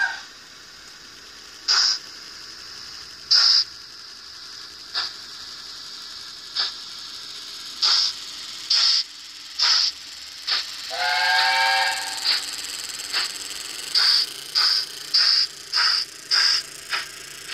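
Sound-decoder steam locomotive effects from an N gauge Dapol Britannia model with DCC sound: exhaust chuffs that come quicker as the train pulls away, with a whistle blast of about a second just after the middle.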